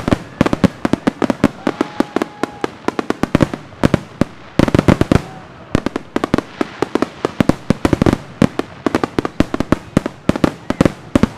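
Fireworks going off in a rapid, unbroken string of sharp bangs and crackles, several every second, with a denser, louder cluster about five seconds in.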